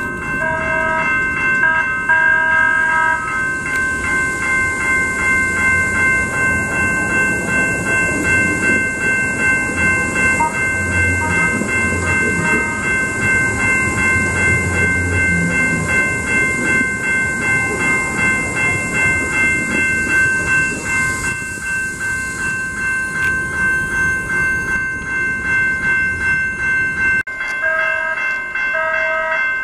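Grade-crossing warning bells ringing in a steady repeating pattern while a Siemens S700 light-rail tram rolls through the crossing; the tram's rumble and wheel noise build up a few seconds in and fade away after about twenty seconds.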